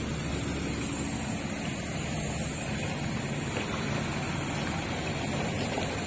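Steady outdoor rumble of road traffic, with wind noise on the microphone and a thin high hiss.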